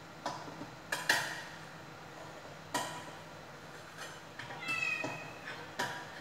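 Metal spoon clinking and scraping against a stainless steel pot: several sharp clinks, the loudest about a second in, and a short squealing tone shortly before the end.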